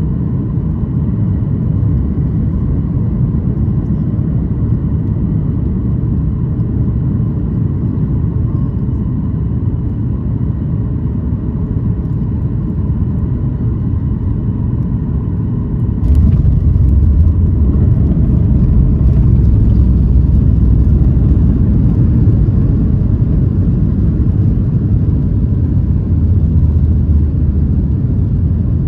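Cabin noise of a Boeing 737 MAX 8 landing: a steady rumble with faint engine tones on the last of the approach, then about sixteen seconds in a sudden jump to a louder, deeper rumble as it touches down and rolls out on the runway with its spoilers raised, easing a little near the end.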